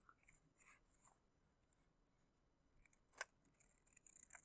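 Faint snips of scissors cutting through a sheet of paper: a few scattered short clicks, the clearest about three seconds in.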